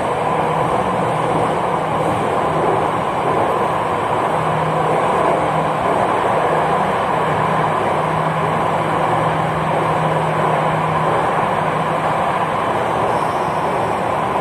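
Jakarta MRT train running between stations in the underground section, heard from inside the passenger car: a steady running noise with a faint low hum that comes and goes.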